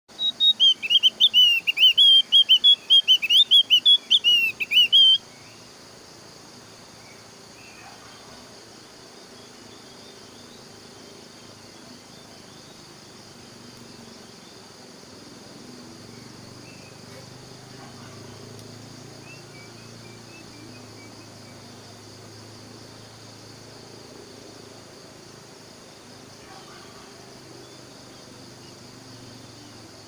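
Javan grey-throated white-eye (opior jawa) singing a loud, rapid, high warbling chatter that stops about five seconds in. After that only a faint steady insect drone remains, with a few soft chirps.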